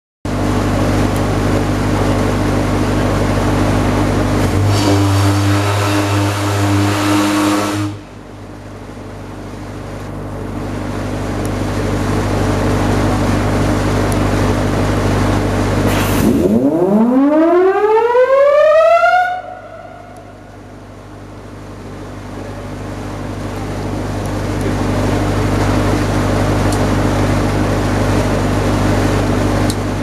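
SS Shieldhall's siren being tested. About five seconds in comes a steady blast of about three seconds. About sixteen seconds in the siren winds up, rising steeply in pitch for about three seconds before cutting off. A steady low machinery hum runs underneath.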